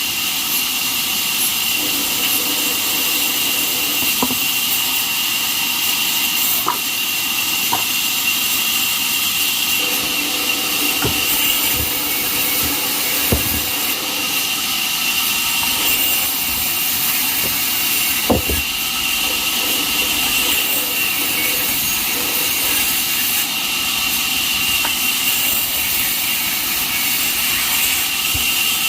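Band sawmill running and sawing through jackfruit wood: a steady high whine over loud, even machine noise, with a few scattered knocks.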